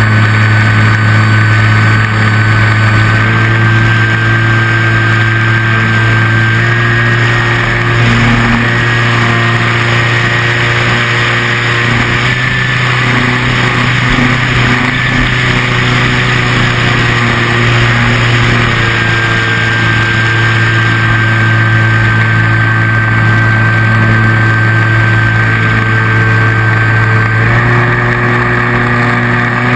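RC model plane's motor and propeller running steadily at a high, even level. The pitch steps up or down slightly a few times as the throttle is changed.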